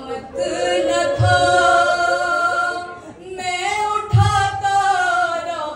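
A woman reciting a nauha unaccompanied into a microphone, singing long held lamenting lines that bend in pitch. Two dull low thumps come about three seconds apart.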